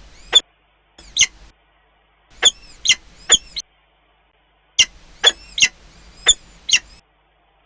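A raptor at its nest calling: about ten short, sharp, high calls in bursts of one to four.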